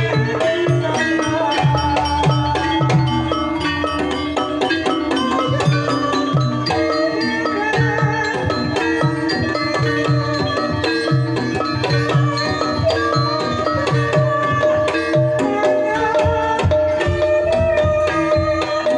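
Banyumasan gamelan music for a tayub gending: kendang hand-drum strokes under ringing tuned-percussion notes. The drumming grows busier near the end.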